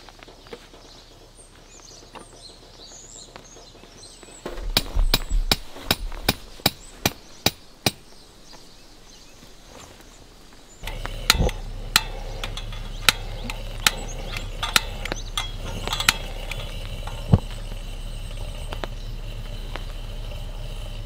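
Tent pegs being hammered in: a run of sharp strikes about two a second, then, over a louder steady background, single strikes about a second apart.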